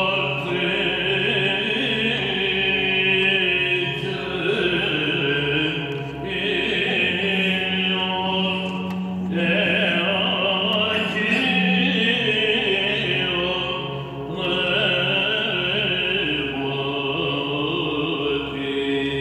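A male cantor chanting a liturgical hymn, his melody moving over a steady low held note.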